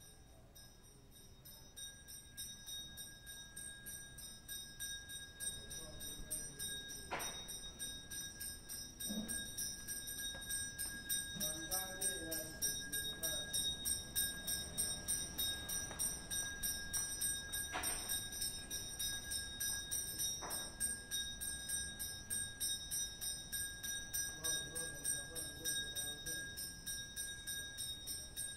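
Small bells jingling continuously with a steady high ringing, fading in and growing louder over the first several seconds; a few sharp clicks sound through it.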